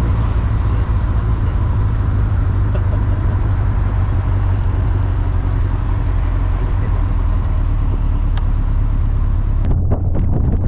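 Open-cockpit Super Seven running at speed: a steady low engine drone under constant road and wind hiss. Near the end the hiss cuts off abruptly and wind buffets the microphone.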